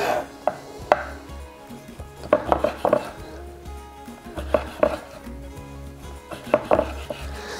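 Kitchen knife slicing roasted rabbit loin lengthways on a wooden chopping board: irregular taps of the blade on the board, some in quick clusters of two or three.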